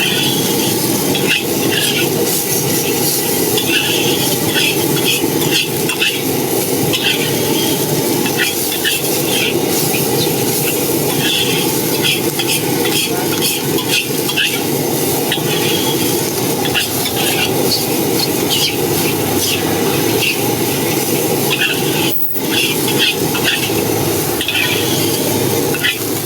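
Stir-frying in a wok over a gas burner: a steady burner and sizzle noise under many quick, sharp scrapes and squeals of a metal spatula against the wok, breaking off for a moment near the end.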